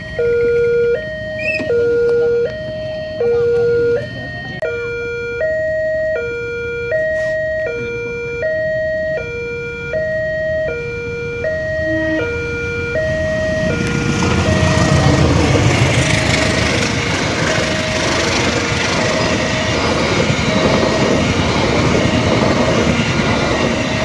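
Railway level-crossing warning siren sounding a two-tone electronic alarm, stepping between a lower and a higher note about once a second; the title calls it a siren alarm error. From about fourteen seconds in, a passing passenger train's running noise rises and becomes the loudest sound, with the alarm still going underneath.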